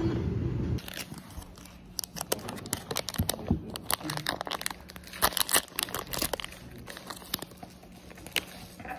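A small plastic blind-pack eraser wrapper being torn open and crinkled by hand: a dense run of crackles, busiest and loudest in the middle, thinning out near the end.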